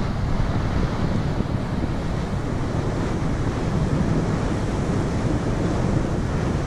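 Wind buffeting the microphone over the steady rush of sea water past a moving boat.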